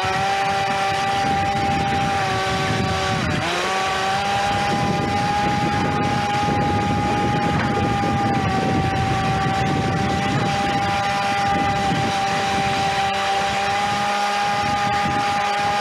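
Radio-controlled jet ski under way: the steady high whine of its electric motor driving the jet pump, over rushing, splashing water. The pitch dips briefly about three seconds in and comes straight back up.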